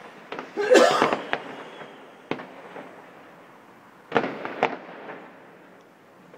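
Distant fireworks: shell bursts and crackling, with a sharp crack a little past two seconds and a cluster of bangs and crackle around four seconds. The loudest moment, about a second in, is a sound with a wavering pitch.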